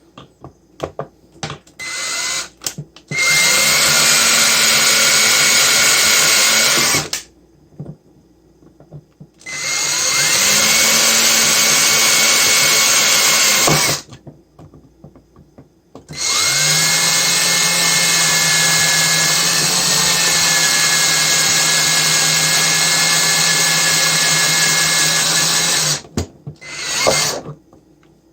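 Handheld electric power tool run in three long bursts of about four, four and ten seconds. Its motor spins up at the start of each burst and then holds a steady pitch with a harsh hiss, with a few short trigger blips before the first burst and near the end.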